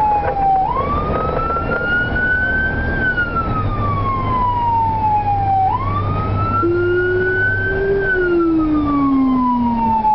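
Fire apparatus siren wailing, heard from inside the cab: a slow rise and fall in pitch, about five seconds per cycle. About two-thirds of the way through, a deep second tone joins, following the same sweep. A steady low engine hum runs underneath.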